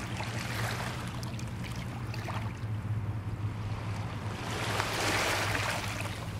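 Small waves washing on a shoreline as a steady hiss, one wash swelling loudest about five seconds in, over a steady low hum.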